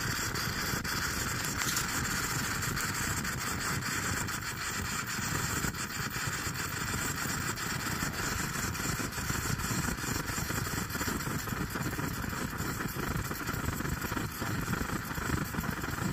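Coleman 530 single-burner liquid-fuel stove burning with a steady rushing noise just after lighting, while it is still warming up and flaring tall and yellow.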